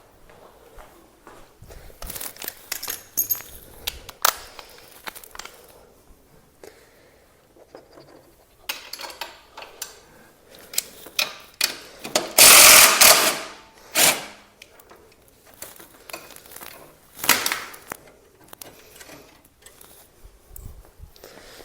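Scattered clicks, clinks and knocks of hands working with tools and parts on a motorcycle, with one loud scraping, rustling burst lasting about a second and a half just past halfway and a shorter one a few seconds later.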